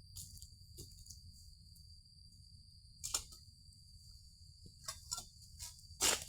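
Insects droning in one steady high tone, with a few scattered clicks. Near the end comes a sudden loud crackling rustle.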